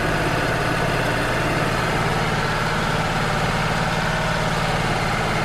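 Wood-Mizer LT35 portable sawmill's engine running steadily, with an even hum and no sudden changes.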